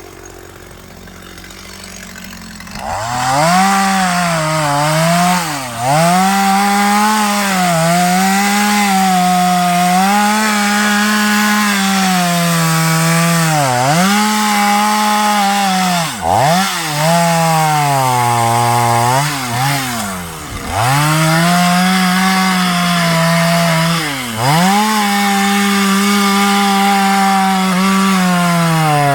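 Stihl chainsaw cutting a tree: quiet at first, it revs up about three seconds in and then runs at a steady high pitch, with several brief dips in pitch along the way.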